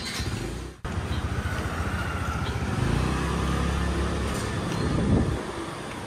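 Street traffic: a motor vehicle's engine running, its pitch rising and getting louder about five seconds in, then dropping away.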